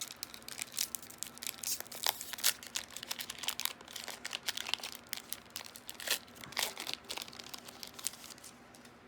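Yu-Gi-Oh! Maximum Gold El Dorado booster pack's wrapper crinkling and tearing as it is opened by hand: a dense run of crackles that thins out near the end.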